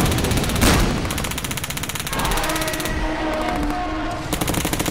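Dense battle sound effects mixed with music: a rapid rattle of gunfire-like shots under an explosion, with a sharp blast about half a second in. A held pitched sound joins about two seconds in.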